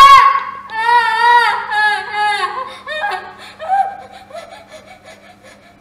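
An actress wailing in long, high cries that break into sobs, growing weaker and fading out over the next few seconds.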